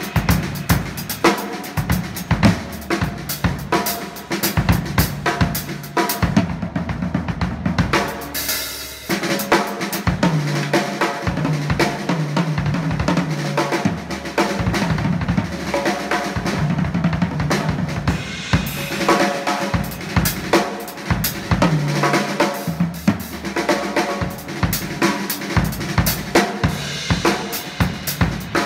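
Drum kit being played continuously: a steady groove of bass drum, snare and hi-hat or cymbals. About six seconds in, the cymbals drop out for roughly two seconds, then the full groove comes back.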